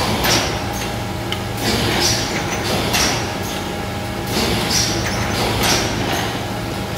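Three-cavity PET bottle blow-moulding machine running: a steady mechanical hum, broken by repeated sharp hisses of compressed air about every one to one and a half seconds.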